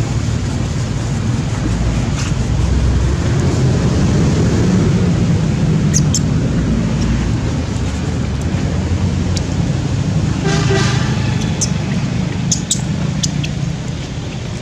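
Steady low background rumble with a short pitched toot, like a distant vehicle horn, about ten and a half seconds in, and a few sharp clicks.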